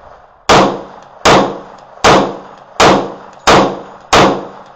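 Magnum Research 1911 10mm pistol firing six shots at a steady, unhurried pace, about one every 0.7 seconds, with Fiocchi 180-grain full metal jacket ammunition. Each shot is a sharp, loud crack with a short ringing tail. The pistol cycles each round without a malfunction.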